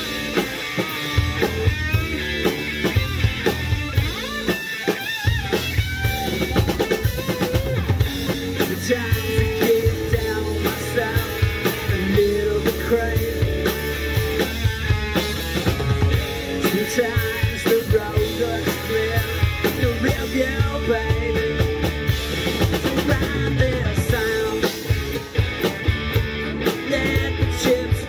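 Live rock band playing: electric guitar, bass guitar and drum kit, with a steady driving drum beat.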